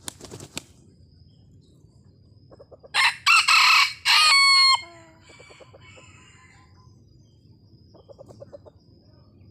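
Red junglefowl rooster beating its wings briefly, then one short, very loud crow about three seconds in, its last note held and cut off. Soft low clucks come just before the crow and again near the end.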